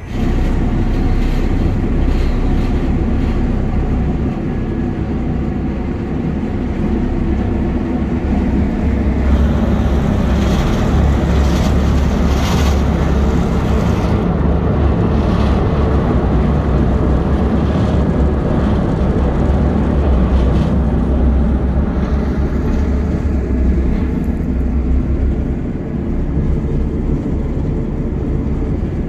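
Small river ferry's engine running steadily during the crossing, a loud low drone heard from inside a motorhome parked on its deck.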